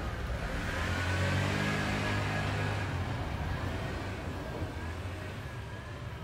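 A motor scooter passing close by, its engine note loudest a second or two in, then fading into steady street traffic noise.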